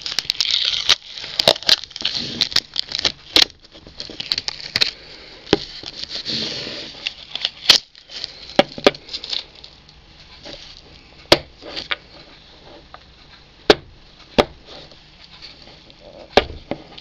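Cling film crinkling on a clip-lock plastic food tub as it is handled, with sharp plastic clicks and taps scattered throughout. The crinkling is heaviest in the first three seconds and again about six seconds in.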